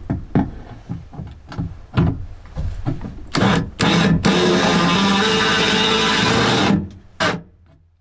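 Yellow cordless drill boring into the van's steel body panel with a dull bit. A few clicks and knocks come first, then two short bursts. The drill then runs steadily for about two and a half seconds before stopping, followed by one brief final burst. The dull bit is barely scratching the very tough steel.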